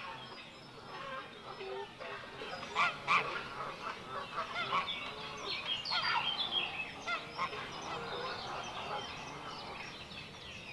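Geese honking in a busy flurry of short calls, loudest about three seconds in and thinning out over the last few seconds.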